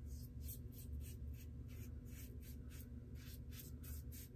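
Double-edge safety razor scraping through lather and stubble on a shaved scalp in short, quick strokes, about four a second.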